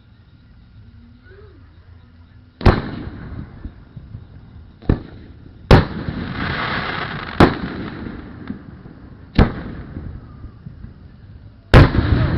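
Aerial fireworks shells bursting: six sharp booms spread over the last ten seconds, each trailing off in a rumbling tail, starting about two and a half seconds in.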